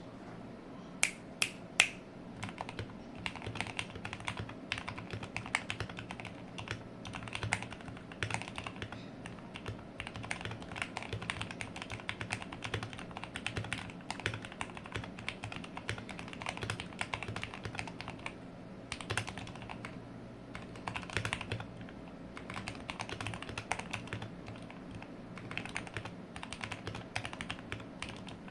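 Modded AJAZZ AK33 mechanical keyboard being typed on continuously in quick, uneven runs of keystrokes. Three louder, sharp clicks come about a second in.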